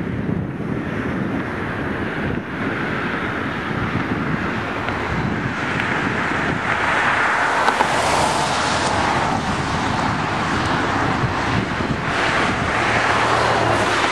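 Distant intermodal freight train rumbling along the far riverbank, with wind buffeting the microphone; the train's noise swells louder about halfway through.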